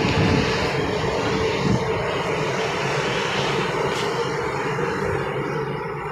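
Steady drone of a large ship's machinery mixed with wind on the open deck, with a steady hum running through it.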